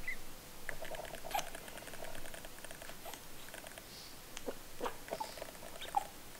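Newborn English Springer Spaniel puppies squeaking softly in a huddled litter, a string of short high squeaks, mixed with a few sharp little clicks and rustles as they shift on a towel.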